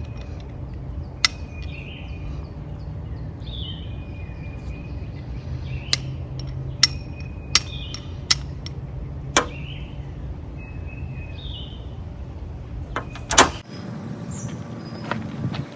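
Sharp, separate clicks of sparks being struck onto charred punk wood: about seven strikes at uneven intervals, the loudest near the end.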